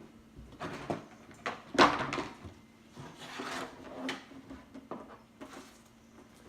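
Items and packaging being handled and set down: a series of knocks and clicks with some rustling, the loudest knock about two seconds in.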